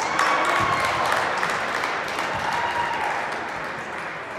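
Gym crowd cheering and applauding, with a few shouts, breaking out suddenly as a free throw goes in and then fading away.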